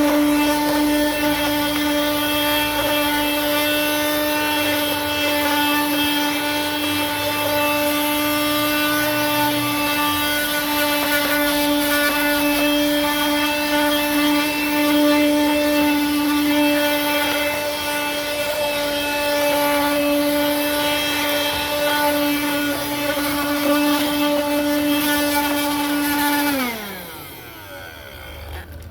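A 12-volt car vacuum cleaner runs steadily off a PC ATX power supply: a steady motor whine over rushing air. About 26 seconds in it is switched off, and the whine falls in pitch and fades as the motor spins down.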